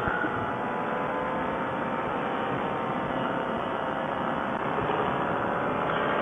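Paramotor engine running steadily.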